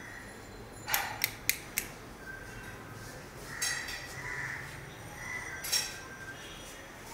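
A wooden door being unlatched and swung open: a knock about a second in, then a quick run of three sharp clicks, and another click near the end.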